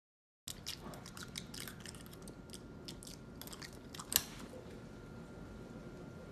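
Half a second of silence, then a run of short wet mouth clicks and lip smacks close to the microphone as the lips open and close like a fish's mouth, with one sharper click about four seconds in. A faint steady high tone sits underneath.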